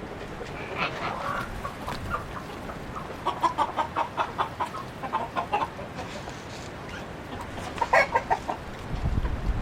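Domestic chickens clucking. There is a run of quick clucks in the middle and another short run near the end.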